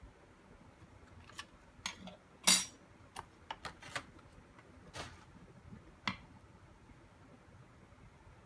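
About ten sharp clicks and light clatters of small hard objects being handled, the loudest a short rattle about two and a half seconds in.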